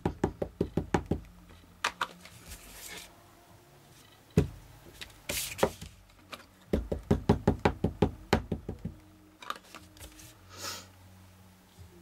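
A stamp tapped against an ink pad on a tabletop: quick runs of light knocks, about six a second, near the start and again past the middle, with a few single knocks between.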